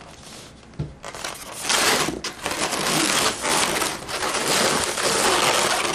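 Latex modeling balloons, a black 260 among them, rubbing against each other and the hands as they are twisted and handled, making a loud rubbing and crackling noise that starts about a second in.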